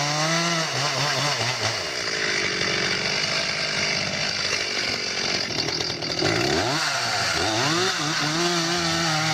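Chainsaw cutting a tree. Its engine pitch falls and rises several times, near the start and again in the last few seconds, with steadier running in between.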